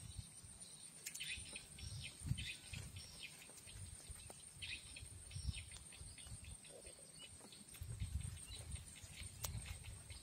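Faint twittering chirps of swiftlets, short high calls coming in scattered groups, with a steady thin high-pitched tone underneath and irregular low rumbles of wind on the microphone.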